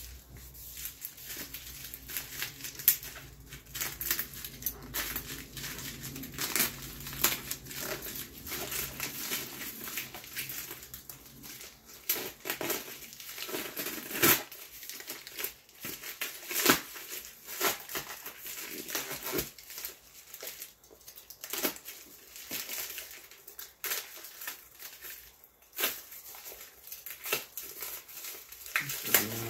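Plastic shipping mailer and its packing being torn open and handled: irregular crinkling, crumpling and tearing with many sharp crackles.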